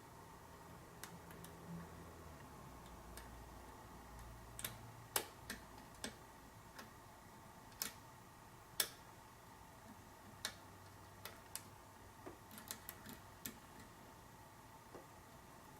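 Lock pick and tension wrench working the pins of a custom pin-tumbler challenge lock during single-pin picking: faint, irregularly spaced small metallic clicks and ticks, two louder ones partway through and a quick run of clicks near the end.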